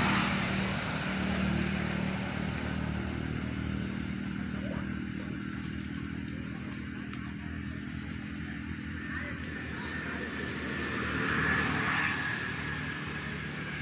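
A motor vehicle engine running at a steady hum, fading over the first few seconds, with another engine hum coming in near the end.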